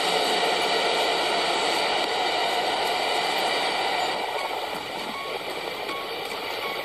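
Kintetsu electric train running out of an underground station platform: a steady rumble of wheels on rails that drops off about four seconds in as the train draws away.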